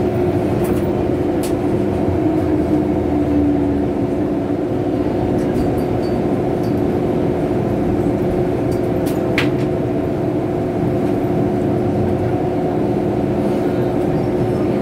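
Inside an MTR M-Train car running on the Tsuen Wan line: a steady rumble with a constant hum, and one short sharp click about nine seconds in.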